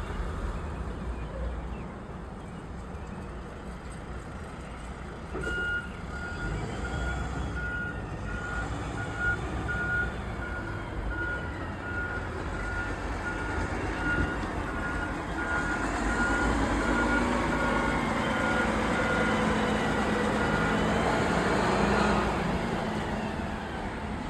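A vehicle's reversing alarm beeping at one steady pitch in an even series, starting about five seconds in and stopping a couple of seconds before the end, over a low engine and traffic rumble that grows louder in the second half.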